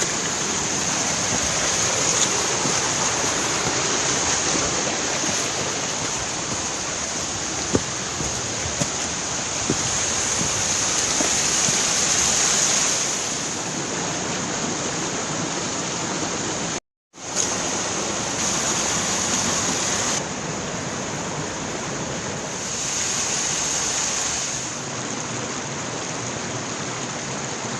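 Grindsbrook, a rocky moorland stream tumbling over stones and small waterfalls, making a steady rushing hiss of water. The sound cuts out for an instant a little past the middle.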